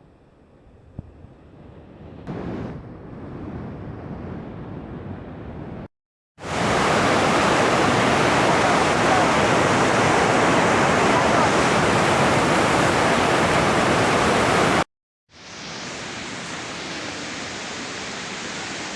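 Steady rushing of a waterfall, broken by two brief cuts to silence. It is fainter at first, with a short knock about a second in. After the first cut it is much louder and fuller for several seconds, then softer again after the second cut.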